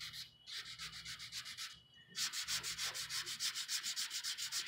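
Hand sanding of cured automotive clearcoat with P320 dry sandpaper on a cut-down plastic Bondo spreader: quick, even back-and-forth strokes, several a second, that pause briefly twice. The sanding is knocking down a run in the clearcoat.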